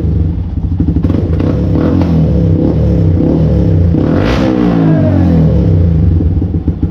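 Yamaha MT-15's 155 cc single-cylinder four-stroke engine revving loud through an Akrapovic full-system exhaust: repeated throttle blips rising and falling in pitch, the highest about four seconds in, dropping back to a pulsing idle near the end.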